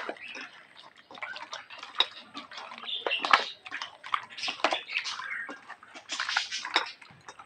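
Hand mixing raw chicken pieces into a yogurt marinade in a stainless steel bowl: irregular wet squelches and light clicks against the bowl.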